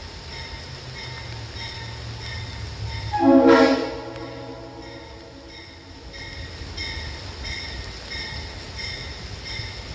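Leslie Supertyfon RS3L three-chime air horn sounding one short blast about three seconds in. Underneath are a low steady hum and a faint chirp that repeats about twice a second.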